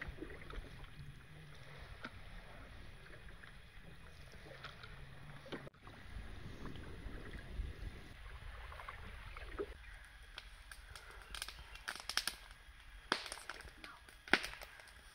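Faint outdoor ambience with water lapping quietly, and a few sharp clicks in the last few seconds.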